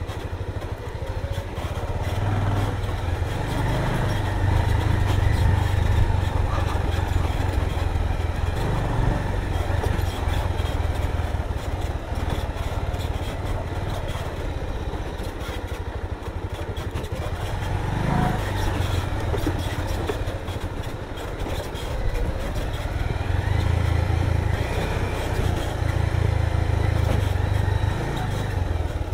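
Motorcycle engine running as the bike is ridden along a hill track, its sound swelling and easing several times with the throttle.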